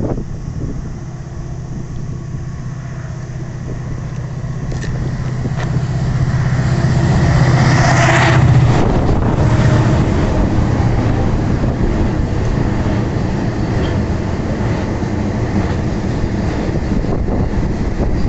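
Diesel freight locomotive approaching and passing close by, its engine drone growing louder to a peak about eight seconds in. The train of hopper wagons then rolls past with a steady rumble.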